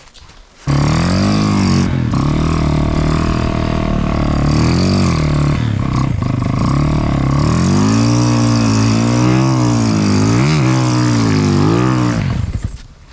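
Snowmobile engine held at high revs, starting suddenly about a second in, its pitch rising and falling as the throttle is worked, and dropping off near the end. The sled is stuck in deep snow and the rider is trying to get the track to hook up and climb out.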